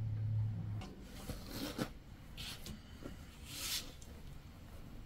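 Pieces of cotton fabric rustling as they are handled and moved, in three soft rustles. A steady low hum cuts off within the first second.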